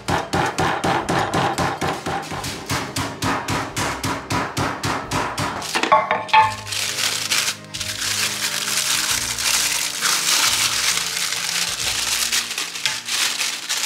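Quick repeated blows of a wooden rolling pin flattening a chicken breast inside a plastic food bag on a granite chopping board, about five a second, stopping about six seconds in. Then the plastic bag crinkles as it is pulled open.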